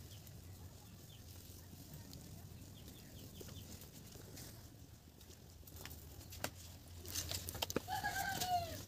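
A chicken calling in the background, one drawn-out call that bends down at its end near the end, with a few sharp clicks just before it.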